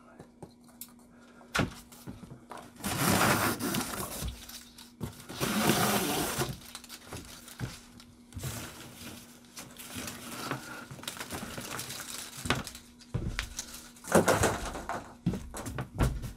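Large cardboard shipping carton being handled: irregular scraping and rustling of cardboard with several thunks as plastic packing straps are pulled off and the box is shifted. A faint steady hum runs underneath until near the end.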